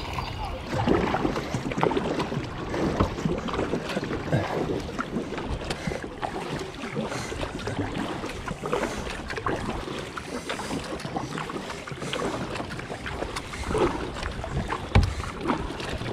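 Kayak paddle strokes dipping and pulling through the river water again and again, with wind buffeting the microphone.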